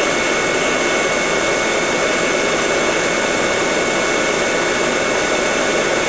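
Corded hot air rework station blowing steadily, a rushing air sound with a steady high whine over it, while it heats a laptop motherboard MOSFET to desolder it.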